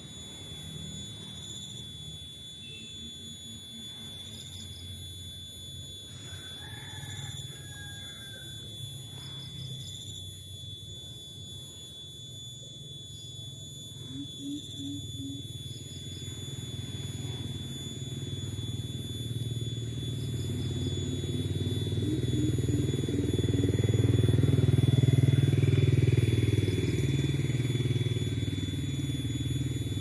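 A coucal calling in short runs of deep, evenly spaced hoots, a few at a time, with a longer run near the end. A steady high-pitched whine and a low rumble lie underneath, and the rumble grows louder in the second half.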